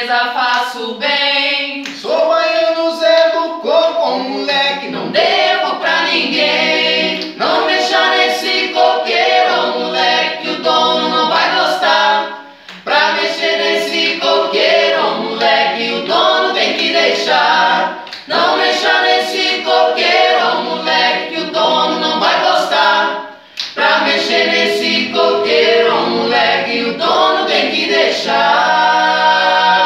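A small mixed group of male and female voices singing an Umbanda ponto in harmony, a cappella, with short breaks between phrases.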